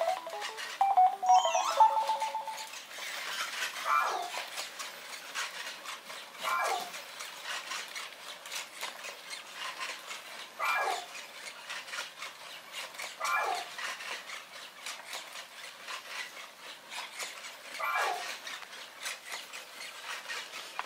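Sony AIBO robot dog's synthesized sounds: a short stepped falling tone melody at the start, then about five brief falling whimper-like chirps a few seconds apart, over faint clicking from its moving joints.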